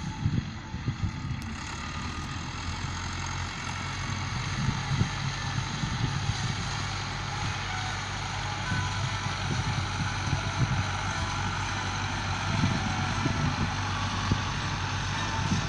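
Diesel farm tractors running steadily while pulling field implements across tilled ground: a low, even engine drone.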